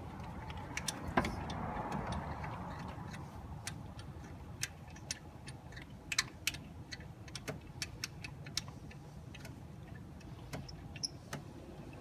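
Scattered, irregular sharp clicks and light metal taps of hand tools on bolts and fittings while a replacement AC compressor is being bolted in, over a steady low hum.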